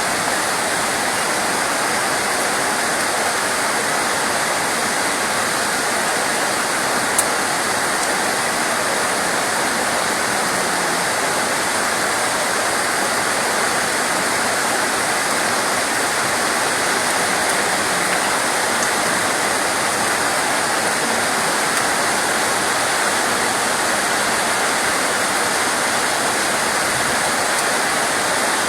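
Steady heavy rain, an even, unbroken hiss of falling water, with one brief sharp click about seven seconds in.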